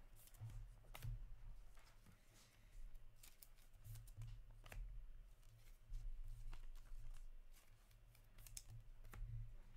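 Faint handling noise of trading cards in plastic sleeves and holders: scattered soft clicks and rustles of plastic, over a low steady hum.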